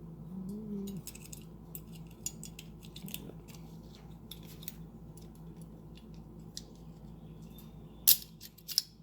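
Small metal parts of a 1971 Buick Skylark seat belt retractor clicking and tapping as the reel is lined up in its housing and the pin pushed back through, ending in two sharp metallic clicks near the end.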